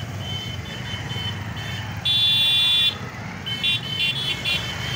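Motorcycle and scooter engines running in a slow procession, with vehicle horns sounding over them: one long loud blast about two seconds in, then several short toots near the end.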